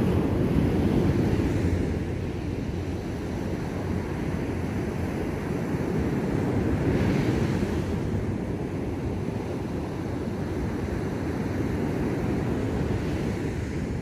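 Ocean waves breaking and washing up a beach: a continuous rushing surf that swells near the start and again about seven seconds in.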